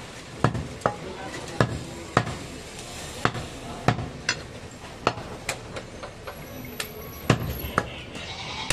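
Large butcher's knife chopping goat meat on a wooden log chopping block: about a dozen sharp chops at an uneven pace, one or two a second.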